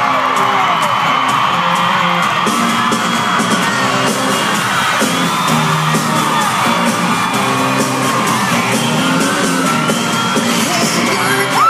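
Live pop-country concert music playing loud over an arena sound system, with a steady beat and singing, while the crowd yells and whoops.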